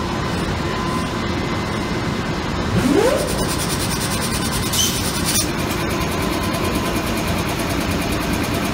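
NR class diesel-electric locomotive idling steadily beside a coupled passenger carriage. A short rising whine comes about three seconds in, and a brief hiss about five seconds in.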